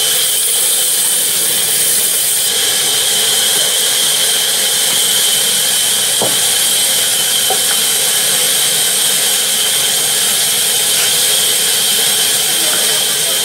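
Sawmill band saw running and cutting through timber: a steady high-pitched whine over a hiss. A single sharp knock about six seconds in.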